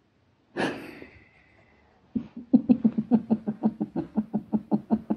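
A woman laughing: a breathy outburst about half a second in, then from about two seconds in a long run of quick, even "ha" pulses, about six a second.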